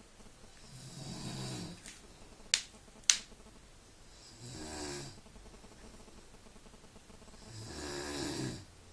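A man snoring, three long snores about three and a half seconds apart. Between the first and second snore come two sharp clicks half a second apart, the loudest sounds.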